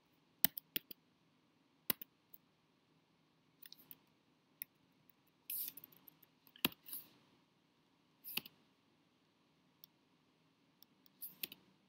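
Quiet, scattered computer keyboard keystrokes and clicks, a dozen or so at irregular gaps, with a brief scrape about halfway.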